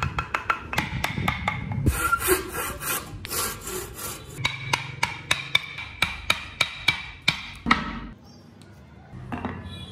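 A steel blade shaving and scraping a wooden block by hand, in quick repeated strokes with sharp ticks and stretches of scraping, which stop about eight seconds in.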